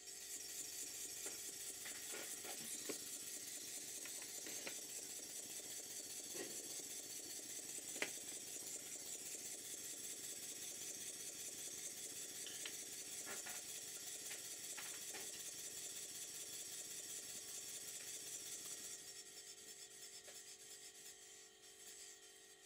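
Stuart Double 10V twin-cylinder model steam engine running on compressed air: a steady fast hiss from its exhaust with a few light clicks, the sharpest about eight seconds in. The hiss dies down about nineteen seconds in as the engine stops.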